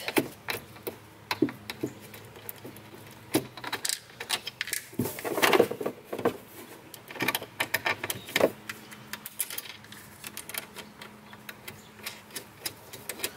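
Irregular small metallic clicks and rattles of a battery cable lug and terminal nut being handled and fitted onto a battery post, with a few longer scraping sounds among them.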